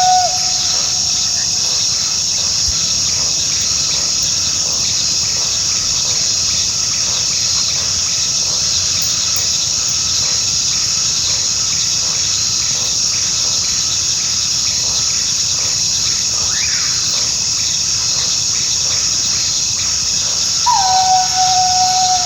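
Coyote howling: the tail of one howl right at the start, a faint short rising-and-falling call in the middle, and a long howl near the end that dips at first and then holds one steady pitch. A constant high insect chorus of crickets runs underneath.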